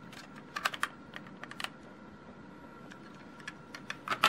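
Plastic Lego bricks clicking as small pieces are handled and pressed onto a Lego model: a scatter of short, sharp clicks, clustered about half a second in, again around one and a half seconds, and more densely near the end.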